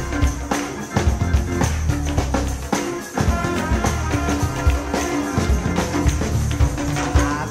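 Live gospel band music with a steady drum beat over bass.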